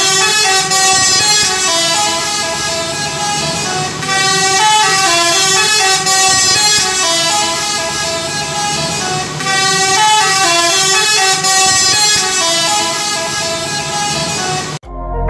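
Telolet multi-tone air horn on a tour bus playing a short stepping tune, repeated about three times. It cuts off suddenly near the end.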